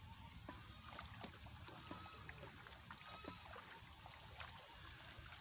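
Faint shallow-water sloshing and dripping from a man wading in a weedy pond and gathering a wet cast net, with scattered small clicks.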